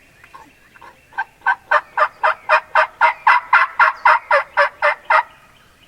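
A turkey yelping: a long, evenly paced run of about twenty yelps, about four a second. It starts soft, grows loud about a second in and breaks off near the end.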